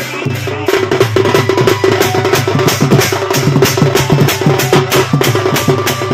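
Large barrel drum (dhol) and percussion playing a fast, even beat as dance accompaniment.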